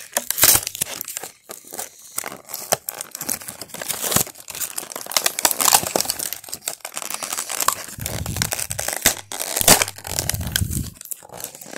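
Cardboard and plastic toy packaging being torn open and crinkled by hand: irregular crackling and ripping, with a few dull low bumps near the end.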